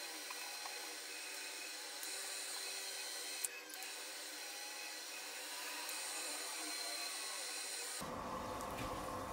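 Electric pottery wheel running with a steady whine while a wet sponge and fingers rub the spinning clay pot. Near the end the sound changes abruptly and a low rumble comes in.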